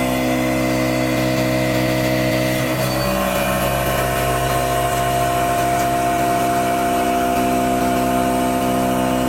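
CNC milling machine running with a corncob roughing end mill: a steady machine hum made of several held tones, shifting slightly about three seconds in.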